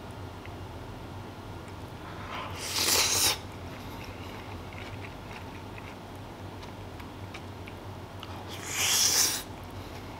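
Two breathy hisses, each swelling for about a second and then cutting off sharply, about six seconds apart, over a steady low hum.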